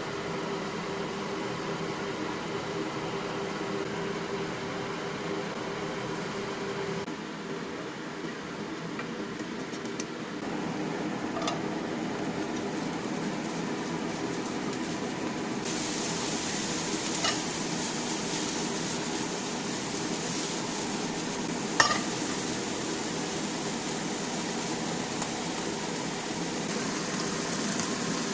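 Food sizzling in a frying pan over a steady fan-like hum, with a few sharp clicks of a utensil against the pan; the sizzle grows brighter and louder about halfway through.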